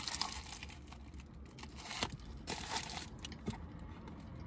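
Paper burger wrapper crinkling in the hands in irregular bursts while a burger is bitten into and chewed.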